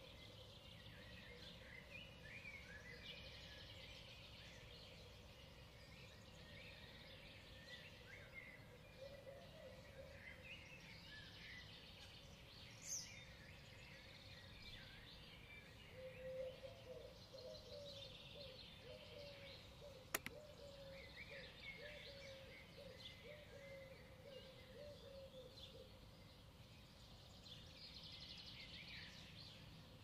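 Faint chirping and trilling of several small songbirds throughout. A run of lower, wavering calls comes in the middle, and there is a single sharp click about twenty seconds in.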